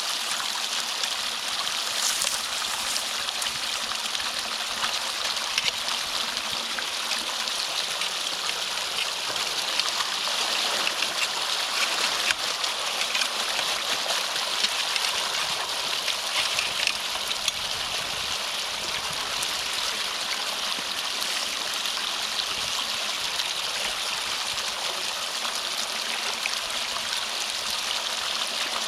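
Water flowing steadily in a drainage ditch, rushing through a culvert that a beaver dam has been blocking, with a few faint clicks.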